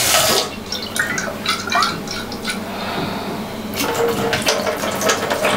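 Water from a kitchen tap running and dripping into a sink, with sharp clinks of glasses and dishes being handled.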